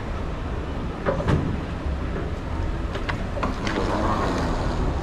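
Steady low rumble of an airport terminal's background noise, with a few sharp clicks and knocks about a second in and again around three seconds in.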